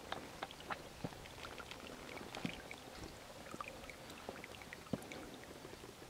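A thin flow of water over a low waterfall trickling and dripping into a rock pool: many small irregular splashes and drips over a faint steady hiss.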